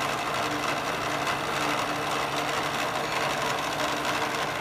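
Milling machine cutting the teeth of a steel steering rack bar: a steady, dense machining noise with a faint low hum that comes and goes.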